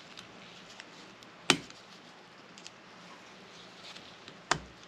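Two sharp clicks about three seconds apart, with a few faint ticks between: a very small screwdriver digging an old seal out of the groove on the steel spool of an excavator's hydraulic swivel joint.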